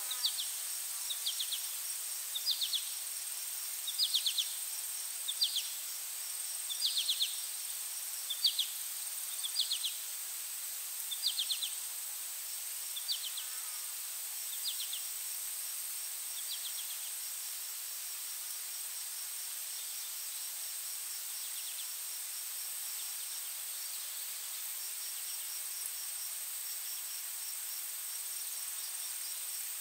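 Insects calling: a steady high-pitched drone with a fast ticking trill just beneath it, and a short chirp repeating about every second and a half that grows fainter and stops about halfway through.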